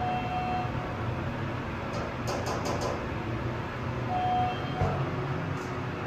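Hydraulic elevator cab in motion, heard from inside the car: a steady low hum, with two short electronic beeps about four seconds apart, a few light clicks between them and a single thump near the end.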